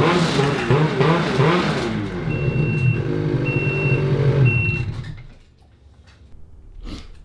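Ski-Doo 850 two-stroke snowmobile engine running, its pitch wavering at first and then steady, with three short high beeps; the engine shuts off about five seconds in, and a few light knocks follow.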